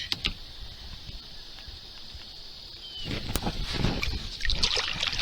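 Kayak paddle strokes splashing and dripping in lake water, picking up about three seconds in after a couple of short clicks.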